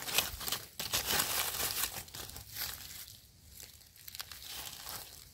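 Dry leaf litter and soil crinkling and rustling as gloved hands dig a wild mushroom out of the forest floor and trim it with a knife. The rustling is busiest for the first two seconds or so, then thins to lighter scratches and clicks.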